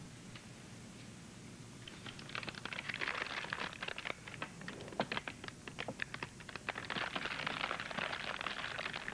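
Paper bag crinkling as a bottle is pulled out of it: a fast, irregular run of small crackles that starts about two seconds in.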